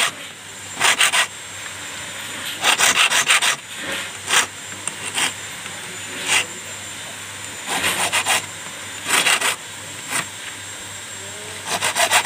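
Hand file rasping across a brass key blank as it is shaped by hand, in quick runs of back-and-forth strokes with short pauses between runs.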